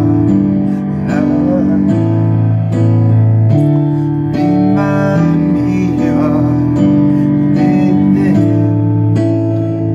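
A song: a voice singing over held instrumental chords, with the bass note changing every second or two.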